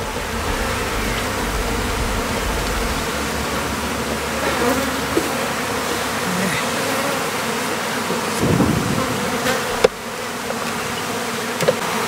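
Many honeybees flying around an opened beehive, a steady dense buzzing hum; they are stirred up by the hive being opened and its frames moved. A couple of light knocks sound near the end.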